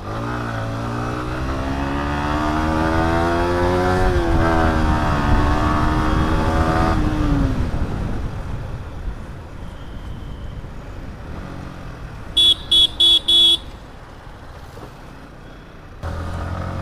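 Yamaha MT-15's single-cylinder engine accelerating away through its stock exhaust: the pitch climbs for about four seconds, dips briefly at a gear change, climbs again, then falls as the throttle eases off after about seven seconds, leaving quieter running. About twelve seconds in a horn beeps four times in quick succession.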